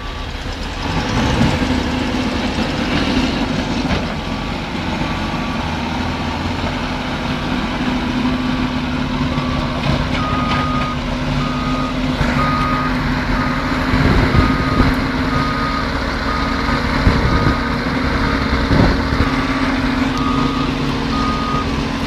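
Backhoe loader's diesel engine running hard under load while a reversing alarm beeps over it in short, evenly spaced pips. A few knocks come after the halfway point.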